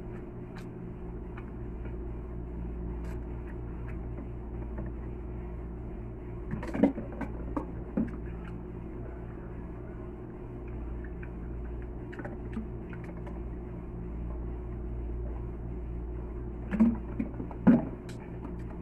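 Steady low electrical hum of room background, with a few brief sounds from the eater at the table: a cluster about seven seconds in, one at eight seconds, and two louder ones near the end.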